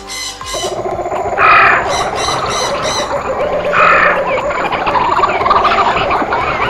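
Rainforest chorus of calling birds and frogs, a dense chatter with a loud harsh call repeating about every two and a half seconds. Sustained music tones stop about half a second in.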